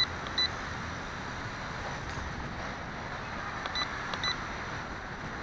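Steady whir of the WLtoys V262 quadcopter's motors and propellers. Two pairs of short high beeps, one at the start and one about four seconds in, from the radio transmitter as trim is adjusted against the quad's back pull.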